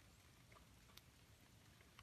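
Near silence of still woods, broken by a few faint, scattered ticks, the clearest about a second in.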